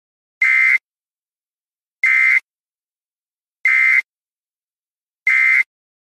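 Audio alert tone of a severe-weather warning web page: four short, identical buzzy beeps at an even pace, about a second and a half apart, announcing a new severe thunderstorm warning.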